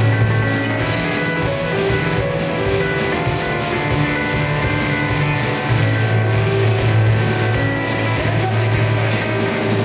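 Live rock band playing: electric guitars, bass guitar and a drum kit, with a strong bass line and regular drum and cymbal hits.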